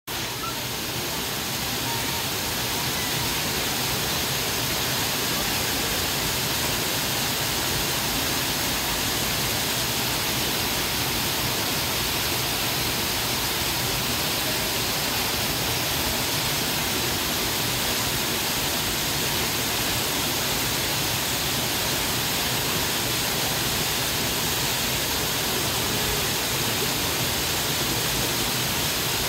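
Steady rushing of a small waterfall spilling over rocks, an even wash of water noise with no breaks.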